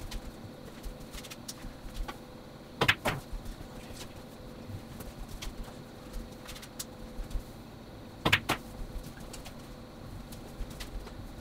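Pool balls clacking together twice, each a quick double knock, about five seconds apart, as balls are handled between shots, over a steady faint hum.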